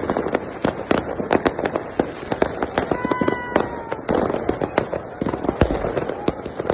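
Many fireworks and firecrackers going off at once: a dense, continuous crackle of sharp bangs, several a second. A short tone that falls slightly cuts through about three seconds in.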